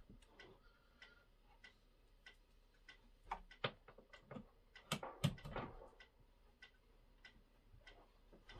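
Faint, evenly spaced ticking, about two or three ticks a second, with a few louder knocks and rustling from handling the crossing-sign lamps and their plug cord between about three and six seconds in.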